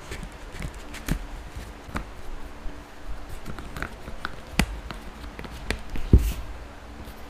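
Hands handling and shifting a stitched leather harness piece on a cutting mat: scattered soft taps and clicks, with a heavier low knock about six seconds in.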